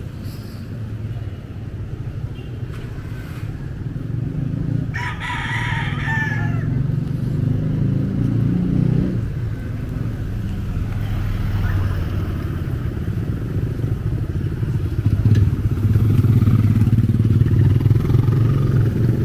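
Motorcycle engines running on the street, loudest over the last few seconds as one rides close by. About five seconds in, a rooster crows once: one call of under two seconds that falls away at the end.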